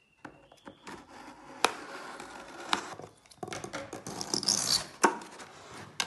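Scissors cutting through packing tape on a cardboard shipping box, then the box being opened and handled: snips, sharp clicks and crackling cardboard. There is a brief tearing hiss a little after four seconds.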